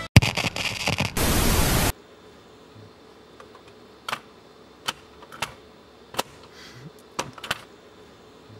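A loud burst of static hiss for about two seconds that cuts off suddenly, followed by about six sharp plastic clicks as a hand works the cassette door and buttons of an LG mini hi-fi system.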